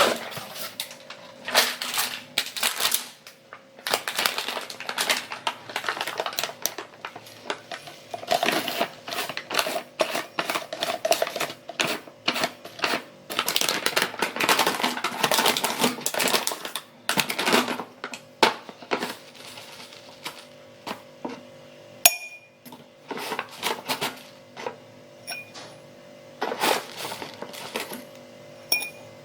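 Clattering and clinking of a spoon against a glass and container while a glass of milk is made, coming in irregular bursts, with one sharp clink about two thirds of the way through.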